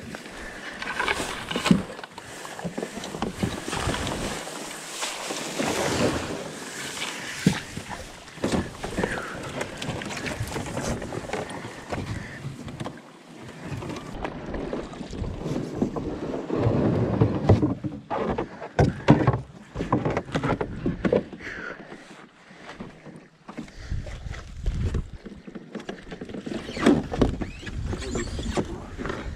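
Aluminum canoe being dragged by hand through grass and brush: irregular scraping and knocking of the metal hull over the ground, with vegetation brushing against it.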